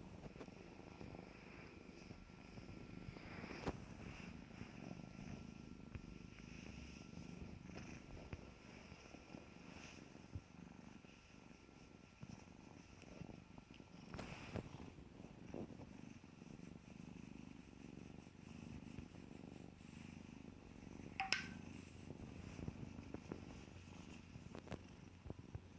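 A kitten purring softly and steadily. A few light clicks or taps are heard, and a brief sharp sound about 21 seconds in is the loudest moment.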